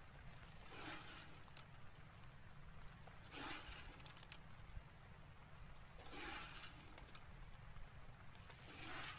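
Granular 14-14-14 fertilizer broadcast by hand over a rice paddy: a soft swishing scatter four times, about every two and a half seconds. A steady high insect chirring runs underneath.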